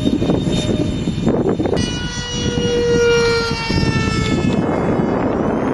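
Four electric ducted fans of a radio-controlled VC-10 model jet whining in flight over a steady rush of air. From about two seconds in, a clear multi-toned whine stands out and falls slowly in pitch for a couple of seconds before fading back into the rush.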